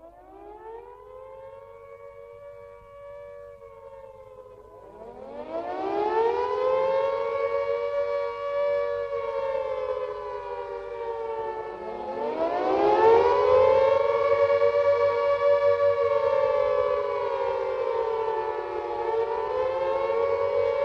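World War II air raid siren sounding the warning, a two-note wail that winds up in pitch, sags and winds up again three times, growing louder, then holds high with a slight waver near the end. It is the alert that enemy bombers are coming and people must take shelter.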